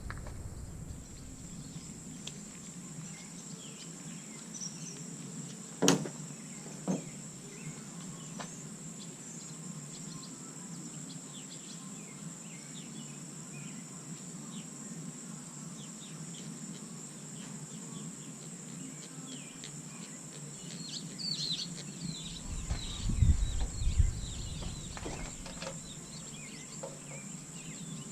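Outdoor ambience with a steady high insect buzz. A sharp knock comes about six seconds in and a lighter one a second later. Near the end there are short chirps and a low rumble.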